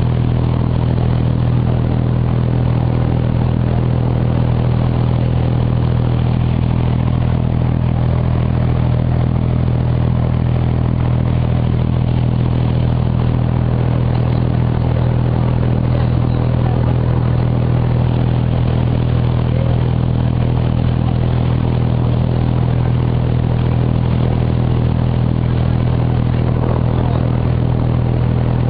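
A Dubai Creek abra's diesel engine running at a steady speed, an even low hum that does not change.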